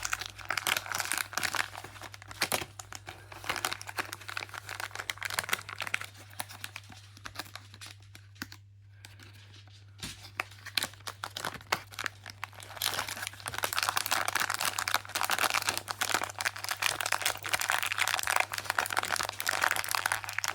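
Packaging being crinkled and torn open to unwrap a new Flysky radio receiver, with a short pause near the middle and busier rustling in the second half.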